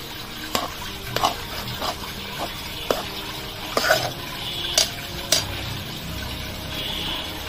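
A long steel spoon stirring thick rice and milk in a metal kadai, scraping through the mixture and clinking sharply against the pan about once a second, at irregular intervals. The rice is cooking down as the milk is absorbed.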